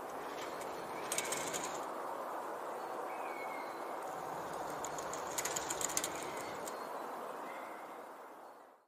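Curtain fabric fluttering in a gentle breeze over a steady wind hiss. There are two short spells of quick flapping, about a second in and again around five and a half seconds in. The sound fades out at the end.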